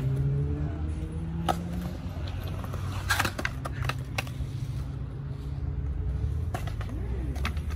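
Skateboard rolling in a concrete bowl, with sharp clacks of the board and trucks hitting the bowl's lip: a cluster about three seconds in and single knocks before and after. A steady low traffic rumble runs underneath.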